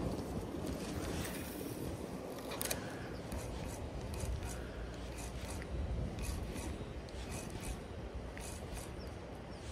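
Spinning reel being cranked to retrieve a lure, its gears and line roller giving light ticking and rubbing, with a steady low rushing underneath.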